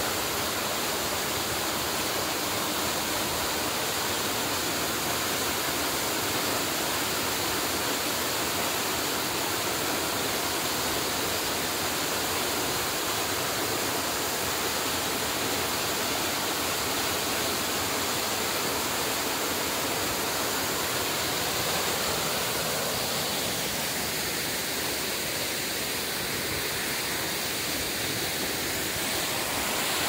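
Waterfall pouring steadily into a rocky plunge pool: an even, unbroken rush of falling water.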